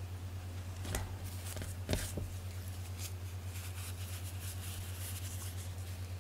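A steady low hum with a few light knocks, the loudest about two seconds in, then faint rustling as a feathered cat toy is handled.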